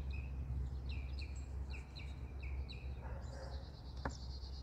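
Songbirds calling in the background: a run of short chirps, about three a second, then a high buzzy trill starting about three seconds in, over a low steady rumble.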